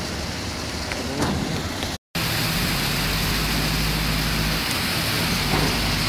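Steady rushing noise. After a brief dropout about two seconds in, a small boat's engine joins it with a low, steady drone as the boat moves through the lock chamber.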